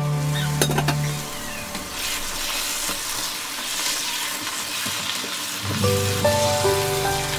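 Sliced mushrooms and onion sizzling in oil in a frying pan as they are stirred with a wooden spatula. Background music fades out about a second in and returns near the end.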